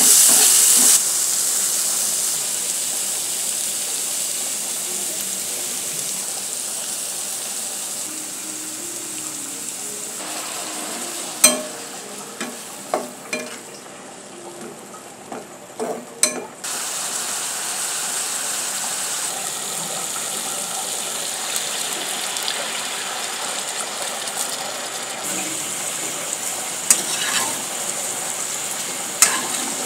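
Sliced onions sizzling in hot oil in a pan while being stirred, with a steady high hiss. Around the middle the sizzle drops lower and a few sharp knocks sound. Near the end prawns are frying in the bubbling onion oil.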